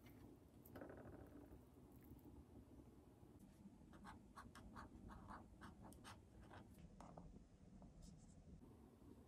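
Felt-tip pen writing on a paper sticky note: a faint run of short scratchy strokes, after a brief scrape about a second in.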